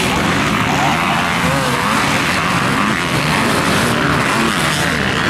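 Several 250-class motocross dirt bikes racing at once, their engines revving up and down in overlapping, rising and falling tones.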